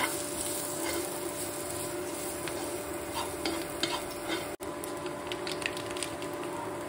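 Metal spoon stirring and scraping sliced cabbage, capsicum and onion frying in a nonstick pan, with small clicks of the spoon against the pan over a steady sizzle. The sound cuts out for an instant about four and a half seconds in.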